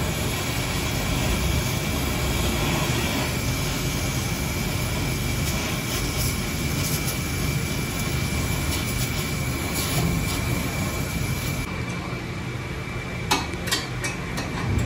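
A steady rushing mechanical noise with a faint high steady tone, and a few sharp clicks near the end.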